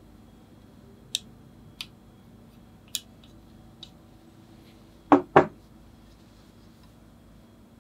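Wooden chopsticks clicking lightly against a ceramic dobin teapot four times while mitsuba leaves are placed in it, then two louder knocks in quick succession about five seconds in.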